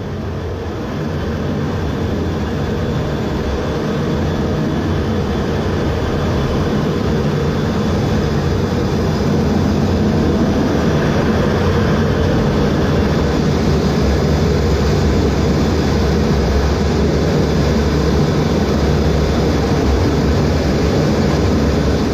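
Carrier jet fighter's engines running, a loud steady noise that builds over the first several seconds and then holds.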